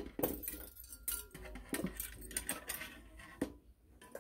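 Light metallic clicks and taps from handling the parts of an Optimus 199 kerosene stove: the brass fuel tank and burner being set into the steel case, with the wire pot support and the key on its chain knocking against it.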